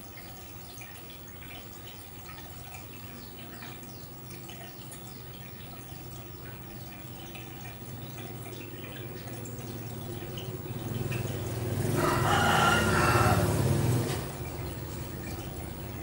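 Aquarium water dripping and trickling in small ticks over a steady low hum. About twelve seconds in, a loud drawn-out call of about two seconds cuts across it, then stops.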